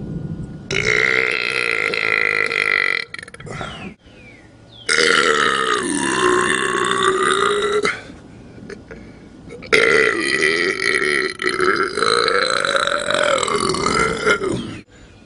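Three long, loud burps, each lasting a few seconds with a steady low pitch; the last is the longest, and its pitch wavers.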